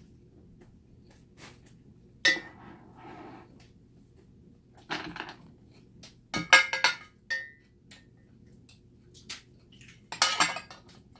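Tableware clinks and scrapes: a metal spoon knocking and scraping in a ceramic rice bowl, and boiled cockle shells clicking as they are pried open by hand. Several separate clinks, the loudest about six and a half seconds in with a short ring after it.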